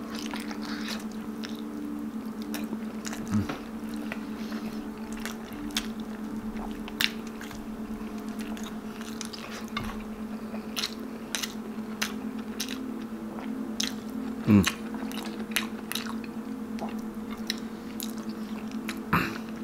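Close-up mouth sounds of eating balbacua, slow-boiled meat and skin eaten by hand: biting, wet chewing and scattered smacking clicks, over a steady low hum.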